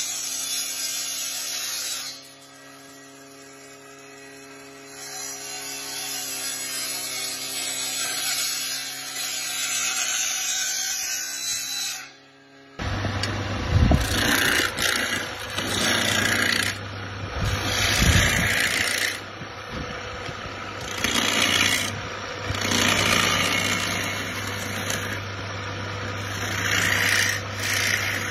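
Electric wood planer running steadily as a willow cricket-bat blank is fed over its cutter. About halfway through this gives way to the hum of an electric motor turning the bat in a rig, with a hand tool scraping the spinning handle in repeated strokes every second or two.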